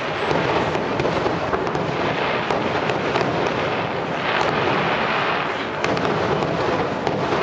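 Fireworks display: many shells bursting in a dense, continuous barrage of bangs and crackle with no break.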